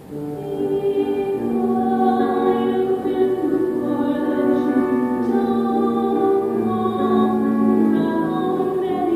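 Live grand piano accompaniment with a singing voice, held notes sounding together in a slow song; the music swells in right at the start.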